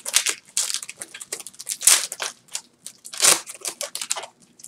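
Foil wrapper of a Yu-Gi-Oh booster pack crinkling and tearing as it is pulled open by hand. It comes as a run of short crackly bursts, the loudest about two seconds and three seconds in.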